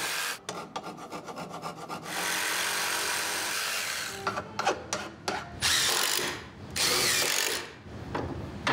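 A saw cutting a pipe to length: steady cutting noise, broken about half a second in by a second and a half of rapid even ticking, then several separate short scraping passes in the second half.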